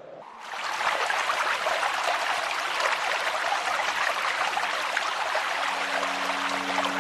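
A steady rushing hiss with no rhythm, starting about half a second in. Sustained music notes fade in near the end.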